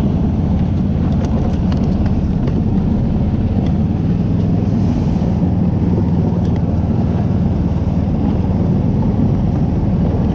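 Engine of a tracked motor-tug (motor-dog) running steadily under load as it travels along a snowy trail, a continuous low drone.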